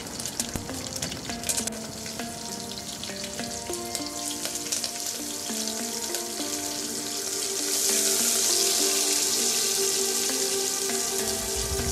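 Hot oil sizzling in a pressure cooker pot as garlic, curry leaves and green chilies fry and chopped onions are sautéed; the sizzle grows louder about eight seconds in. Background music with a melody plays beneath it.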